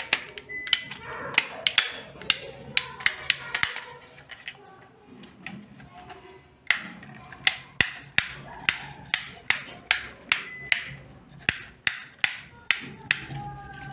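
Tip Top modular rocker switches being flipped on and off by hand: sharp plastic clicks at about three a second, in two runs with a pause of a few seconds between.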